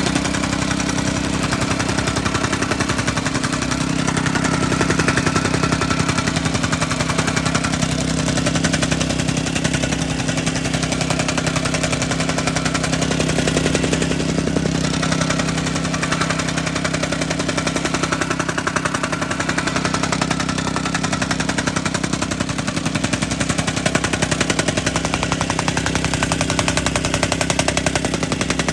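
Mikasa MTR-40H tamping rammer running on its Honda GX100 single-cylinder four-stroke petrol engine, the shoe pounding in a rapid, steady hammering rhythm over the engine note.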